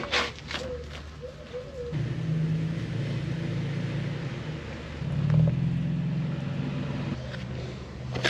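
Toyota Tacoma pickup's engine running at low speed while the truck is backed up. It comes in about two seconds in, picks up briefly about five seconds in, and eases off near the end.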